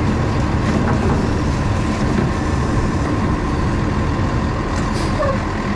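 Feed truck driving over pasture: steady engine and driving noise.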